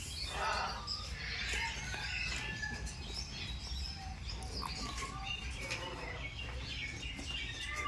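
Parrots chirping and whistling in many short, overlapping calls.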